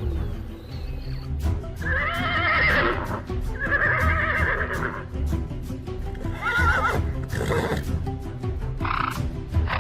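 Horses whinnying about four times, each call wavering in pitch, with scattered hoof clatter, over background music.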